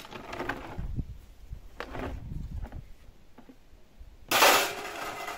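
Kitchen utensils clattering and scraping against a coarse strainer as blended red pepper is worked through it for pepper paste: a few short scrapes and knocks, then a louder harsh scrape about four seconds in.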